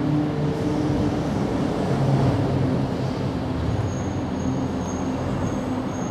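Steady low rumble of a running motor vehicle, with a faint high-pitched tone repeating from about four seconds in.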